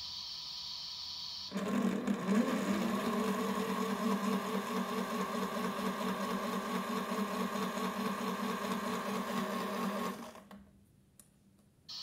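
Small electric motor of a toy washing machine turning its water-filled drum: it starts about a second and a half in with a short rising whine as it comes up to speed, runs steadily with a slight regular wobble, then winds down and stops about ten seconds in. A steady hiss comes before it.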